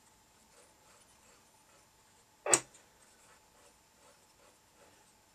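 One sharp click about two and a half seconds in as a front-panel control on a Realistic DX-160 communications receiver is worked. Otherwise very quiet, with a faint steady thin tone.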